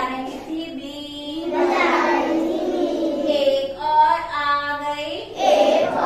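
A group of young children singing together in unison, mostly without words: a held, stepping tune that imitates the been, the snake-charmer's pipe, from the counting rhyme.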